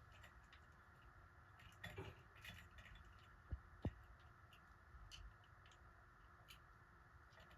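Faint handling noises over a low room hum: scattered small clicks and a brief rustle, with two short soft knocks close together about three and a half seconds in.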